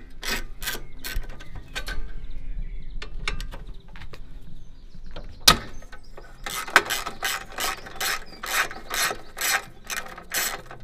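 A socket ratchet on an extension bar is working a bolt on a lawnmower engine, its pawl clicking on each back-stroke in even runs of about two to three strokes a second. There is a short run near the start, a quieter stretch, and a single sharp knock about five and a half seconds in, before a longer run of ratcheting.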